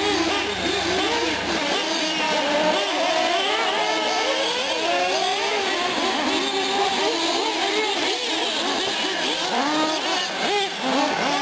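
Several 1/8-scale nitro R/C engines in Associated SC8 short-course trucks and a Kyosho buggy, revving up and down over one another as the cars lap the track, each a high buzzing whine that keeps rising and falling.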